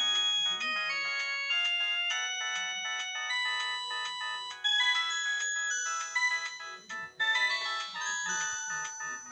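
Samsung E1202i mobile phone playing one of its built-in polyphonic ringtone melodies: a bright run of synthesized notes changing step by step, with short breaks about five and seven seconds in.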